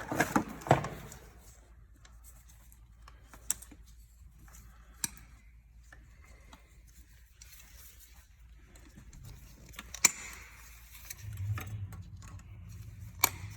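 Quiet handling of tools and battery cables on a workbench: scattered sharp clicks and light clinks, a handful of them standing out, with a low hum coming in about eleven seconds in.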